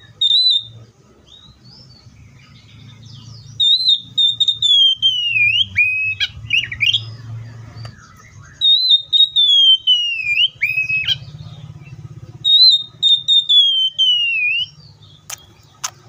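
Oriental magpie-robin singing. Loud whistled phrases start high and slide downward, then break into short sharp notes, three times over, after a couple of brief notes at the start. Two sharp clicks come near the end.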